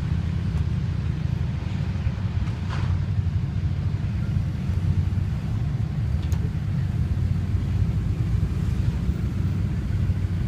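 Diesel pickup engine running steadily, a low rumble.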